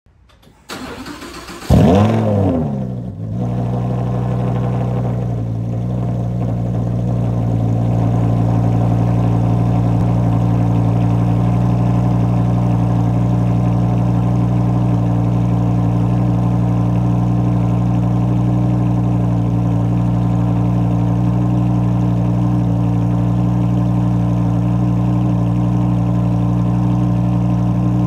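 Lamborghini Huracán's V10 engine cold-starting: a brief crank, a loud rev flare about two seconds in that rises and falls in pitch, then a steady idle through the quad exhaust tips.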